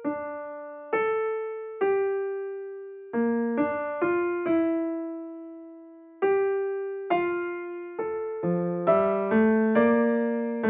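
Solo piano background music: a slow melody of single notes, each struck and left to ring out and fade, growing busier with lower notes joining about eight seconds in.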